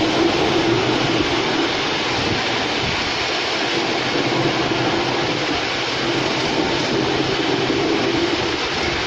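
Ride-on miniature railway train running along its track, with a steady noise of the wheels rolling on the rails.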